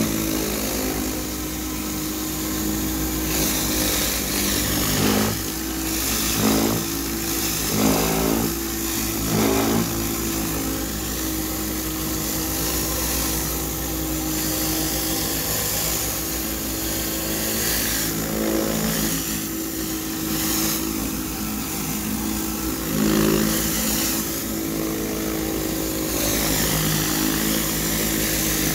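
A 4,000 PSI hot-water pressure washer running steadily under load, its engine drone mixed with the hiss of a rotary surface cleaner spraying hot water onto concrete.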